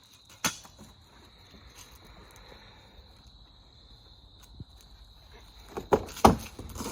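Crickets giving a steady high-pitched trill, with a sharp click about half a second in and a few louder knocks near the end.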